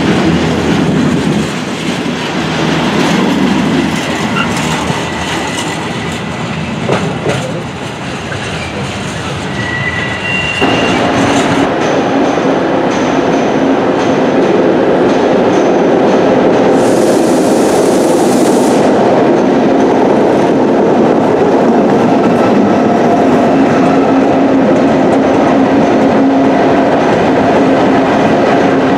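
Freight train wagons rolling past on the rails: first a rake of empty flat wagons, then, after a sudden cut about ten seconds in, a locomotive and a long train of box wagons passing with a louder, steady rumble of wheels on track. A brief hiss sounds a few seconds after the cut.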